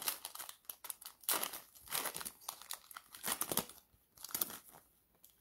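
Crinkling and tearing of the plastic cellophane wrapper of a 2020 Mosaic NFL trading-card cello pack as it is ripped open by hand: a dense run of sharp crackles for about three and a half seconds, then a few fainter ones.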